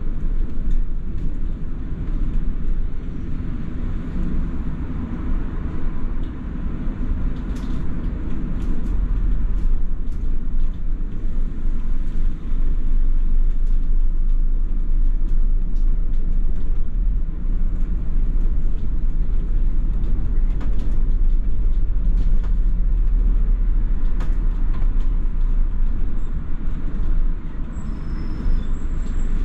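Cabin noise of a London double-decker bus on the move: a steady deep engine and road rumble with a few short rattles and clicks scattered through it.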